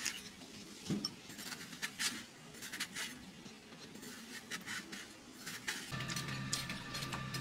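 Kitchen knife cutting a ripe watermelon into cubes: a run of crisp cuts and knocks of the blade, with pieces clinking into a glass bowl. About six seconds in, a steady hum starts up underneath.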